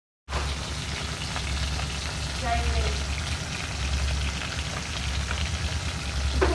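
Fish steaks frying in hot oil in an iron wok, a steady sizzle with a few sharp pops, starting abruptly a moment in. A steady low hum runs underneath.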